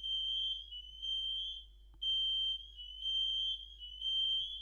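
Fire alarm sounding: a high-pitched electronic tone pulsing about once a second.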